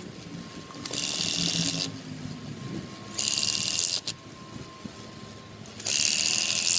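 Cordless power driver driving screws through a tactile indicator mat into concrete, in three short bursts of just under a second each, about two seconds apart.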